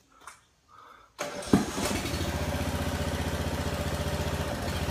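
Small gasoline engine powering the hydraulic jack for a foundation pier starts up about a second in, with a sharp knock as it catches, then runs steadily with an even pulsing beat.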